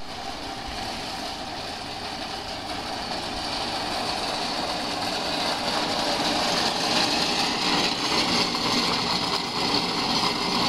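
A scooter running steadily along, a continuous mechanical noise that grows louder over the first seven seconds or so.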